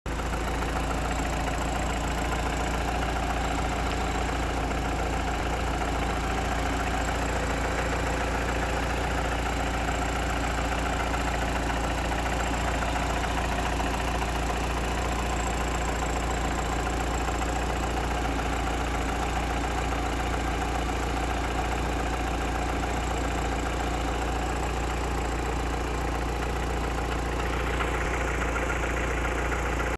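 Mitsubishi Lancer Evolution VIII's turbocharged 2.0-litre 4G63 inline-four idling steadily, with a tick from a dead valve lifter.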